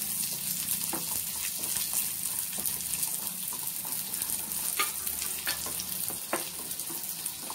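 Shallots, garlic cloves and curry leaves sizzling in hot oil in a nonstick pan, stirred with a wooden spatula. A steady sizzle is broken by a few short knocks and scrapes of the spatula against the pan.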